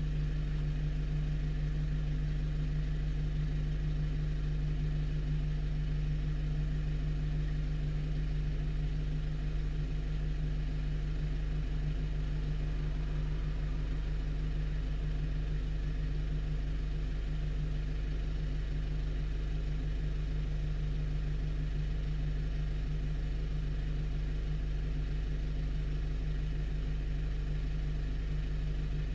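A 1-ton truck's engine idling steadily while the truck stands parked, an even low hum that does not change.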